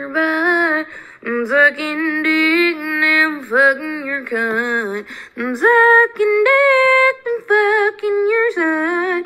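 A woman singing unaccompanied, in several phrases of held notes separated by short breaks.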